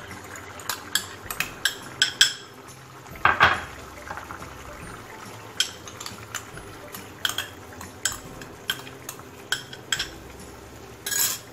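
Irregular clinks and knocks on a metal cooking pan, with a couple of longer rustling scrapes about three seconds in and near the end, as soaked lentils are tipped in from a plastic bag.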